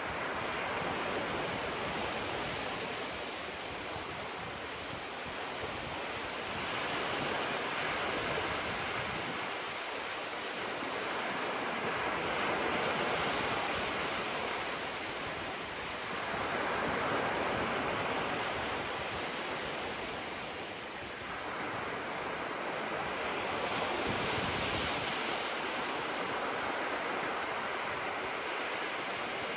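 Small waves breaking and washing on the shore, a steady hiss of surf that swells and eases every four to five seconds.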